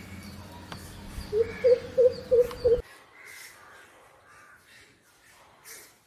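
Greater coucal giving its deep hooting call: about five low, loud 'coop' notes in quick succession, starting about a second and a half in.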